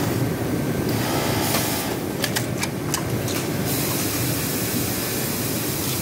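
Industrial sewing machines running on a garment workshop floor, including a Juki MF-7923D coverstitch hemming machine. It is a steady mechanical drone with a few sharp clicks around the middle and a steady hiss in the second half.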